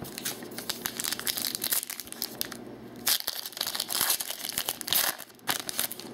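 Foil trading-card pack being torn open and crumpled by hand: a run of crinkling and crackling, with louder rustles about three seconds in and again near five seconds.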